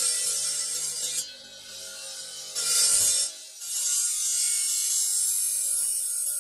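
Green marble ground against a spinning abrasive disc on a motor-driven shaft: a harsh, hissing grind that cuts in and out as the stone is pressed to the wheel and pulled away. It runs for about the first second, again briefly around three seconds in, then steadily from about four seconds on.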